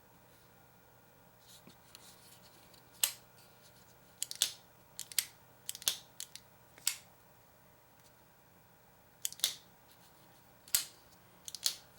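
Demko AD20.5 folding knife being opened and closed repeatedly. The blade swings on its freshly installed Skiff ceramic pivot bearings and snaps into lock, giving sharp clicks in irregular clusters that start about three seconds in. It is a test of the action, which feels smoother.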